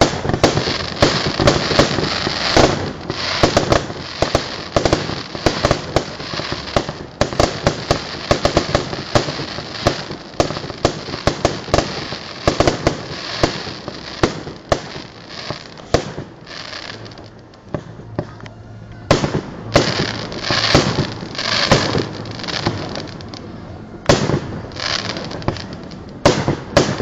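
Aerial fireworks display: a dense run of bangs and crackling bursts, easing off to a short lull about two-thirds of the way through, then building again with more sharp reports.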